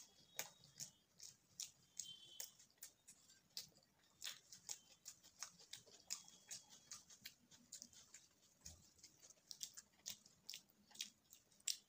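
Faint close-up eating sounds: chewing and wet mouth clicks from eating bhatura (puffed deep-fried bread) with chole. Irregular sharp crackles come several times a second, with the crisp bhatura being torn by hand.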